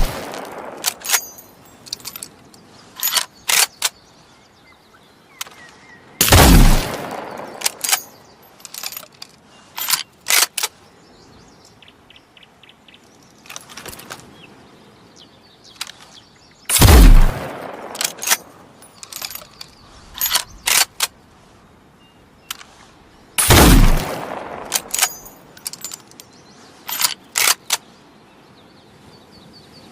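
Chassepot bolt-action rifle fired three times, each a single loud shot with a long fading tail, the shots about ten and then seven seconds apart. Between shots come clusters of short metallic clicks as the bolt is worked to reload.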